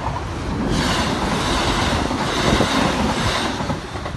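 Northern Class 170 Turbostar diesel multiple unit passing close at speed. Its wheels rush and clatter on the rails, swelling sharply under a second in and easing away near the end.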